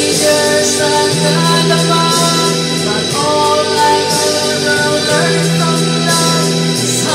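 A woman singing through a handheld microphone over instrumental backing music, holding long sustained notes.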